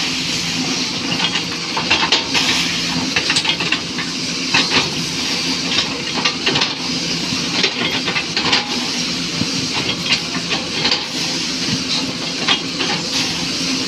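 SANY 215C diesel excavator running steadily under load while its chipping blade cuts into a felled oil palm trunk, with a constant hiss and frequent sharp cracks and crunches as the fibrous trunk is sliced into discs.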